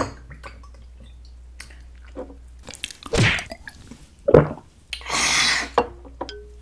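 A shot of soju being drunk: a swallow about three seconds in, a sharp knock a second later, then a long breathy exhale after the burn of the liquor.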